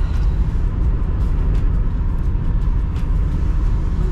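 Car interior road noise while driving: a steady low rumble of engine and tyres, with a few light ticks.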